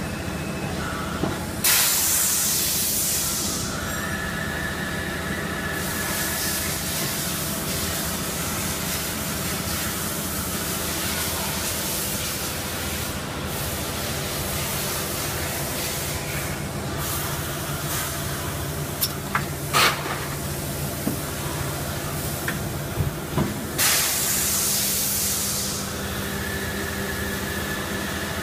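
Injection moulding machine running a PET preform mould through its cycle: a steady machine hum with two loud bursts of hiss, about two seconds in and again near the end, and a few sharp clicks a few seconds before the second hiss.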